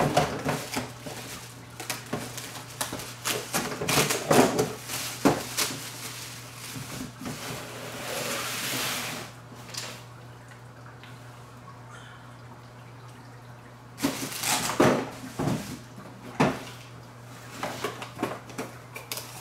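Unpacking noises: plastic wrapping rustling and crinkling, and metal parts and cardboard knocking and clattering, with a loud cluster of knocks about two-thirds of the way through. A steady low hum runs underneath.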